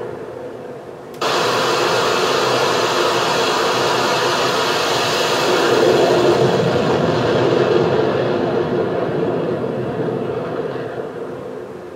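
F/A-18 Super Hornet's twin jet engines at full power during a catapult launch. The jet noise is fading away, then about a second in an abrupt cut brings back loud, steady jet noise, which fades as the aircraft pulls away near the end.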